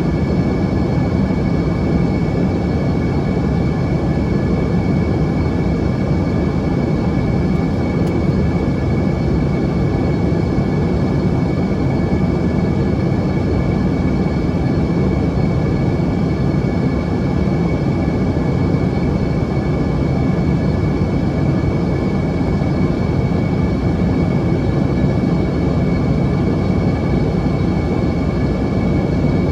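Steady in-cabin noise of an Embraer ERJ-145 in flight: a constant rush of airflow and the drone of its rear-mounted Rolls-Royce AE3007 turbofans, with a thin steady whine on top.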